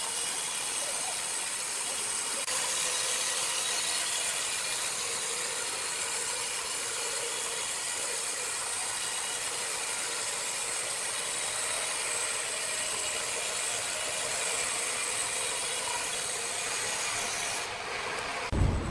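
Sawmill saw cutting through wood: a steady rasping noise that holds for many seconds and breaks off abruptly near the end.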